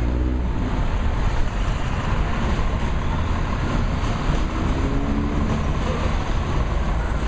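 Busy city street traffic: a steady low rumble of idling and passing vehicle engines over a continuous din.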